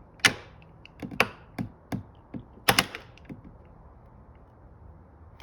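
Hand tapping and pressing a plastic wiring clip into its hole on a car seat frame: a quick run of sharp light taps and clicks, about nine in the first three seconds.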